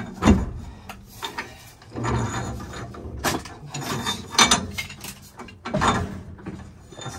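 Threaded steel pipe fittings being turned together with a pipe wrench: irregular metallic clicks and knocks of the wrench jaws, with scraping of the threads in short spells.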